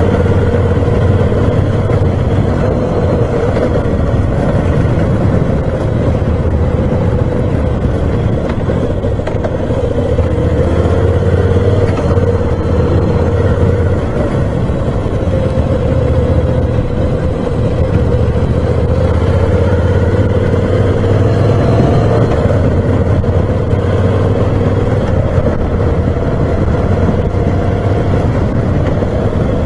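Moto Guzzi V7 Special's 750 cc air-cooled transverse V-twin running steadily under way, its note rising and falling gently as the throttle is opened and eased.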